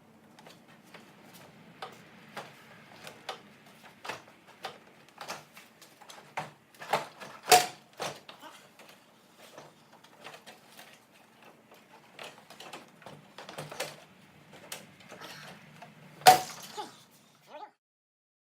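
Plastic front bumper cover being pulled off a Chevy Colorado, its retaining clips popping loose: a string of irregular clicks and knocks, with two much louder snaps about seven and a half and sixteen seconds in.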